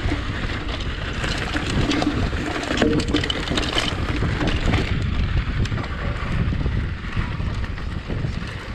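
Mountain bike riding fast down a dry dirt trail: tyres rumbling over the dirt, with frequent clicks and rattles from the bike over bumps, under heavy wind buffeting on the microphone.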